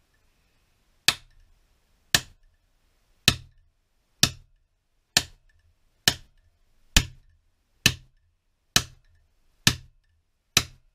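Claw hammer tapping the metal end fitting of an air-rifle regulator assembly mounted on its air cylinder: eleven sharp strikes about one a second, each with a brief ring.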